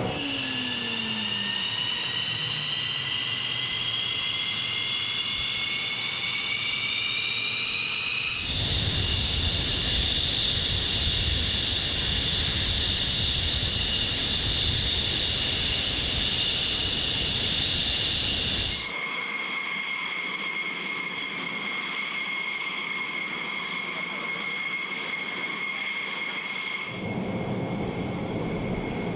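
F-15 fighter jet engines on the flight line. A high turbine whine rises in pitch as the engines spool up, then becomes a loud steady whine over a deep rumble as the jet taxis, then a quieter steady whine without the rumble. The sound changes abruptly about 8, 19 and 27 seconds in.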